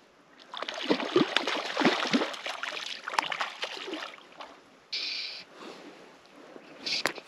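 A hooked trout splashing and thrashing at the surface of a pond for a few seconds, in irregular splashes. Two short, higher hissing bursts follow near the end.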